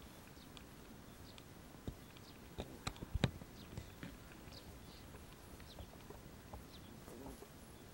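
Faint, irregular clicks and knocks, with a cluster of louder knocks about three seconds in, over a quiet outdoor background with faint short high chirps.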